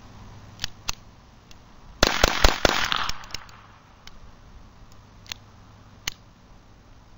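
Beretta 21A .22 Long Rifle pistol firing a rapid string of about five shots in roughly a second, starting about two seconds in, with a few quieter sharp clicks around it. The firing stops because a spent case has failed to extract.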